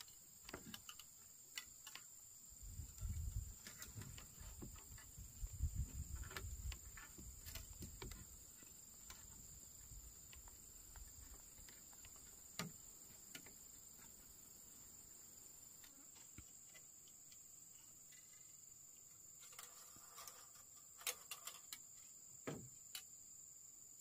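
Faint, steady high-pitched insect chirring, with scattered soft knocks and low thuds, mostly in the first third and again near the end.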